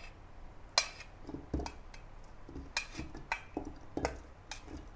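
Metal spoon clinking against a stainless steel bowl, about half a dozen irregular clinks, as chopped onion, chili, garlic and ginger are scraped out, with soft thuds of the pieces dropping into a plastic blender cup.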